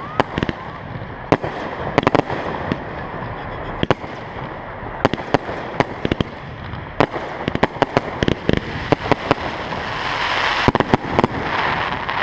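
Aerial fireworks going off in a rapid, irregular series of sharp bangs as shells launch from the ground and burst overhead. A louder, denser hissing crackle builds near the end.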